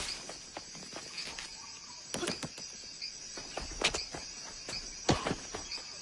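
Insects chirping steadily, with scattered sharp clicks and knocks; the strongest two come near four and five seconds in.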